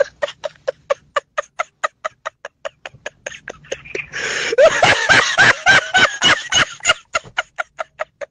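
Person laughing in a long run of short, rhythmic pulses, about five a second, swelling into a louder, fuller burst of laughter about four seconds in that lasts some three seconds before falling back to the quick pulses.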